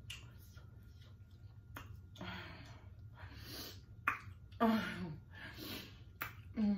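Close-up eating sounds: a few sharp mouth clicks and smacks, several breathy puffs, and a short falling hum about halfway through.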